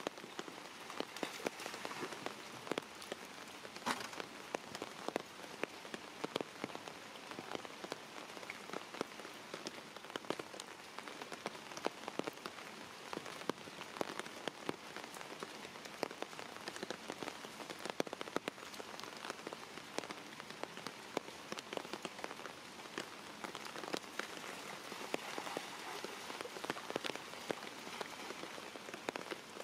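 Steady rain falling on standing floodwater, a constant hiss dotted with many small drop ticks and splashes.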